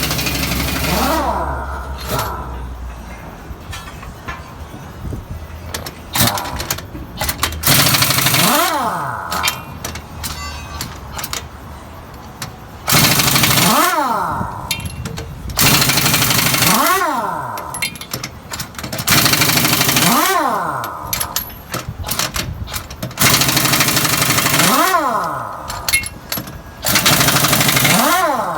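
Air impact wrench working lug nuts on a truck's rear wheels, run in about seven loud bursts of two to three seconds each, each with a whine that drops and then climbs in pitch.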